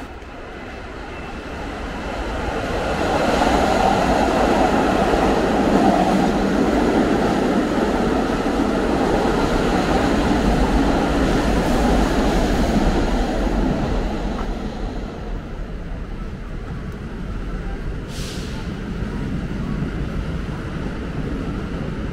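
A Brighton Line subway train passing. Its rumble swells over the first few seconds, holds loud, then fades after about fourteen seconds, and there is a short high-pitched hiss near the end.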